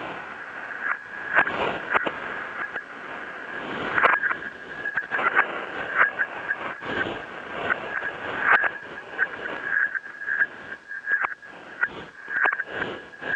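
Two-way radio static: a hissing, crackling interference with a steady high-pitched tone running through it and irregular sharp crackles and pops.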